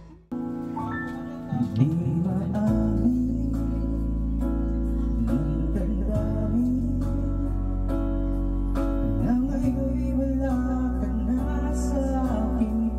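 Karaoke: a voice singing into a microphone over a guitar-led backing track played through a karaoke speaker. The music breaks off at the very start and comes back in, and the singing enters about a second and a half in.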